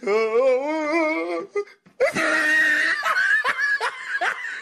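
Laughter: a wavering, warbling laugh for about a second and a half, then after a short break a higher-pitched stretch of giggling with repeated falling notes.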